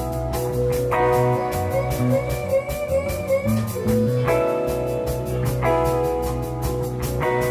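Live amplified rock band playing an instrumental passage: electric guitars holding chords that change about every second and a half over a steady drum-kit beat, with a violin.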